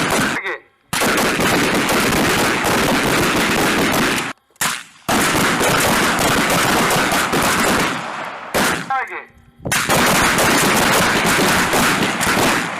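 Rapid, overlapping rifle fire from many shooters on a firing line, the shots running together almost without pause. It breaks off sharply three times, about half a second in, around four and a half seconds in and around nine seconds in, and a voice is briefly heard in two of those breaks.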